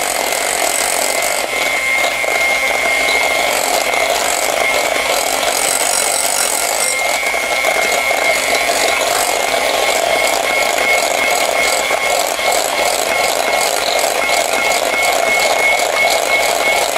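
Electric hand mixer running steadily, its beaters whirring through batter in a glass bowl, with a steady high whine from the motor.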